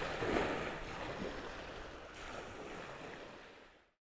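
Surf washing on the shore, with wind buffeting the microphone, fading out steadily and cutting to silence just before the end.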